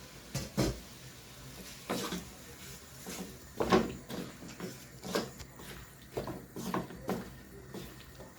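Cookware and utensils being handled in the kitchen: a string of irregular knocks and clatters, the loudest a little under four seconds in.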